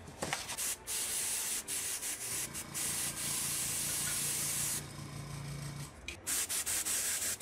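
Copic airbrush spraying ink from a Copic Sketch marker: a few short puffs of air, then a steady hiss held for about four seconds, then more short puffs near the end. A low hum runs under the middle of the long spray.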